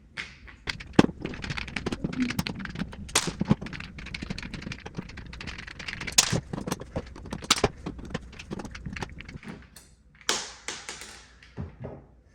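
Wall light switch cover plate being unscrewed and taken off: a quick run of small clicks, taps and short scrapes of a screwdriver, screws and plastic plate, the sharpest click about a second in.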